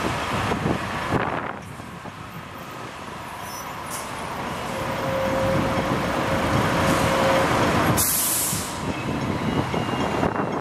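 Street traffic going by: a coach passes, then a minivan, with a faint steady whine partway through. A short sharp hiss of released air comes about eight seconds in. Near the end a double-deck electric tram rolls closer on its rails.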